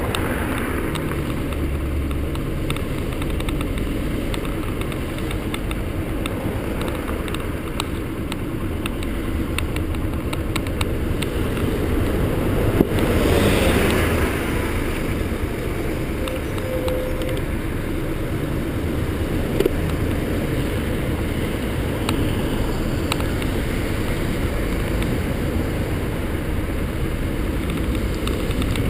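Yamaha XTZ125's single-cylinder four-stroke engine running steadily on the move, under wind and road rumble, with a brief louder swell of noise about halfway through.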